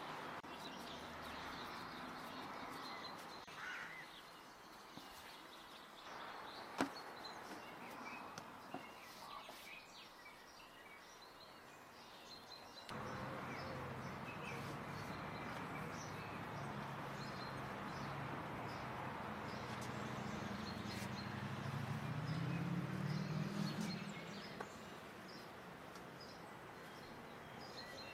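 Birds chirping over a quiet outdoor background. About halfway through, a low steady hum comes in and swells for a few seconds before easing off near the end.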